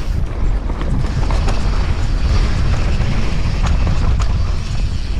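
Downhill mountain bike descending a rough dirt trail at speed: a steady heavy rumble of wind and tyres on loose dirt, with scattered sharp clicks and rattles from the bike.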